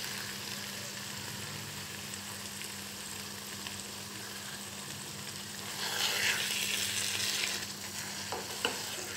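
Beef keema sizzling in oil in a wok as whisked yogurt is poured in and stirred through with a silicone spatula. The sizzle swells for about two seconds past the middle, and there are a couple of light clicks near the end.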